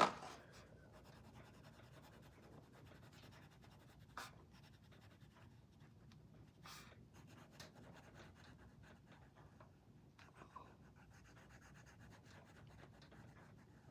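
Faint scratching of a colouring tool on the paper of a colouring-book page, with a few soft taps.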